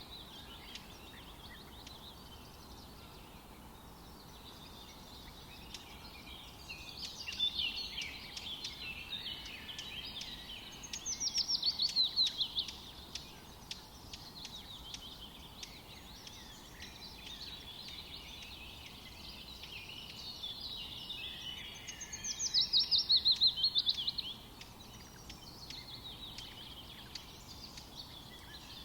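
Wild birds chirping and singing, with scattered chirps throughout and, twice, a loud rapid series of falling notes lasting about two seconds each, the first about eleven seconds in and the second about twenty-two seconds in.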